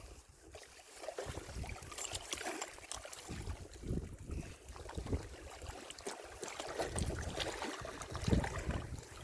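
Wind buffeting the microphone in irregular gusts, a low rumble that rises and falls, with a few faint small knocks.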